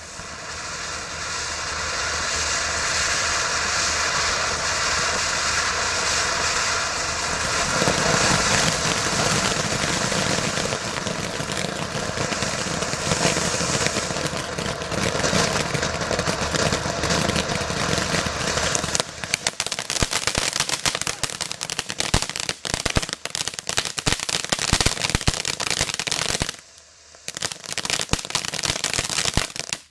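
Consumer fountain fireworks spraying sparks with a steady rushing hiss. About two-thirds of the way through, the sound turns to rapid crackling and popping, with a short lull near the end.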